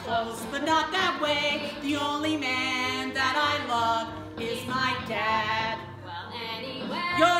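Voices singing a musical-theatre song live on stage, with long held notes that waver.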